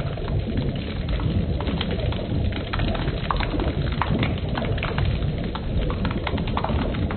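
A heavy stream of liquid pouring onto a person's upturned face and head, splashing steadily with many small spattering clicks.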